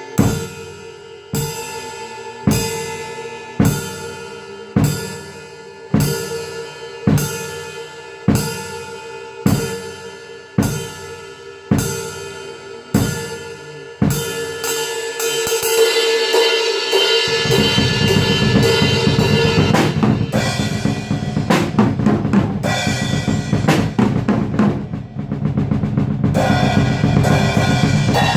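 Atmospheric black metal music: slow, heavy drum and cymbal hits about once a second over a held tone, then about halfway through the full band comes in with dense, fast drumming.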